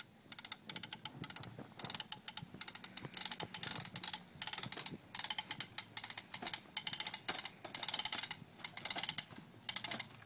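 Toddler's wheeled push toy clicking and rattling as it is rolled over grass and gravel: rapid runs of ratchet-like clicks, broken by brief pauses where it stops moving.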